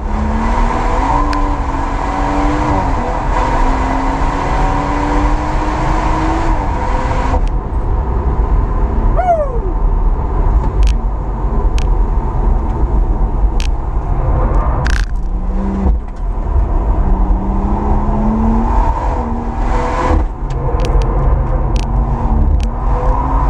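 BMW M140i's tuned turbocharged 3.0-litre straight-six at full throttle on track, its note rising in steps through the up-shifts. In the middle it comes off the throttle, with sharp cracks and one loud bang, then pulls hard again with the note climbing.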